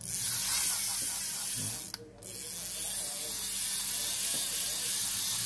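Shimano Ultegra 2000 spinning reel being cranked by hand, its rotor and gears giving a steady fast whirring hiss that stops briefly about two seconds in and then starts again. The seller calls the reel a little dry of oil but very smooth.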